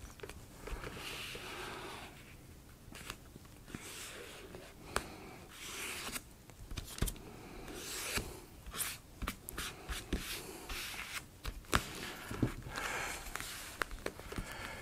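Hands at work on a model railway layout: irregular scraping and rustling as glued foam road pieces are pressed and handled, with scattered small clicks and knocks.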